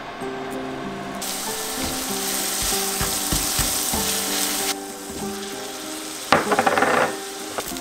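Minced garlic sizzling in hot oil in a wok as it is stirred, loud for a few seconds and then dying down. Near the end there is a short, louder burst of sizzling and scraping as rice goes into the pan.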